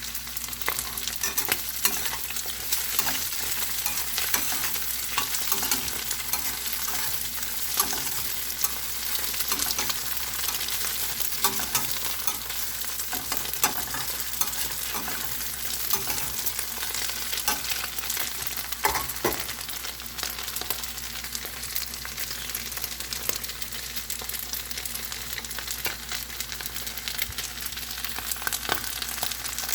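Vegetables, tofu, small shrimp and fish balls sizzling as they fry in a pot, with a spatula stirring and scraping against the pan in short clicks throughout.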